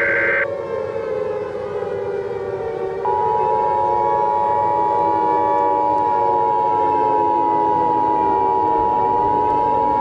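Civil defense siren wailing, its pitch slowly rising and falling. Over it, the end of an Emergency Alert System digital header screech cuts off half a second in, and about three seconds in the steady two-tone EAS attention signal starts.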